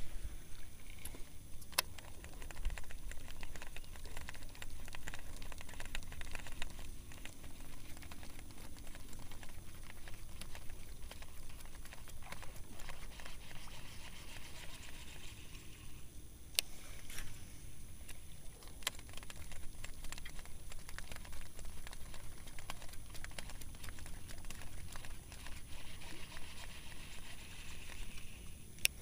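Daiwa Pixy baitcasting reel cranked in two stretches, a light whirring hiss, over a steady rumble of wind on the microphone and scattered small clicks and ticks.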